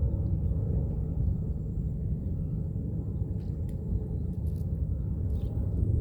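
A steady, fluctuating low rumble with a few faint clicks.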